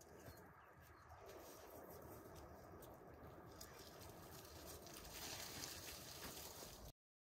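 Faint outdoor sound of footsteps on snow and loose soil, with light patter, at a level close to silence; it cuts off abruptly near the end.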